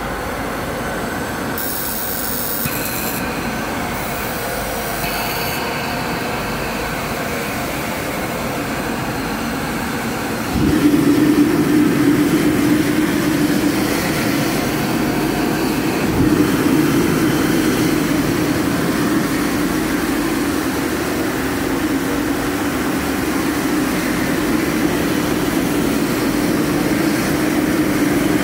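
Gas burner of a commercial wok range coming on suddenly about ten seconds in, then burning with a steady low rumble over a constant background hum.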